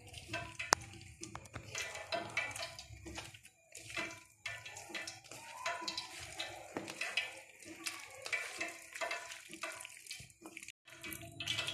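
Wet squishing and squelching of a hand kneading raw chicken pieces in a coating of flour, egg white and marinade on a ceramic plate, an irregular run of soft squishes with an occasional tap on the plate.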